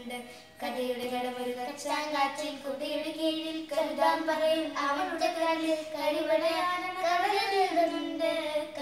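A girl singing solo without accompaniment, a slow melody of long held notes; one note near the end wavers and swells upward.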